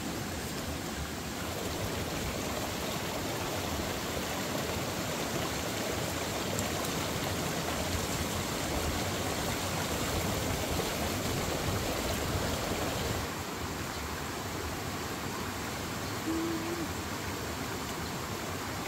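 Steady rushing of a shallow stream running over rocks, easing slightly about two-thirds of the way in. Near the end comes one short, steady low note.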